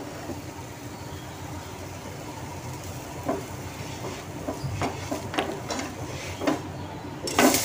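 Dosa batter cooking on a hot iron tava over a gas burner: a steady low sizzling hiss with a few light clicks. Just before the end, a sudden, much louder sizzle starts up.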